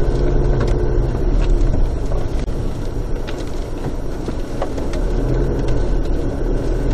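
Car engine running and tyres rolling over a rutted dirt track, heard from inside the cabin, with scattered small knocks and rattles as it bumps along.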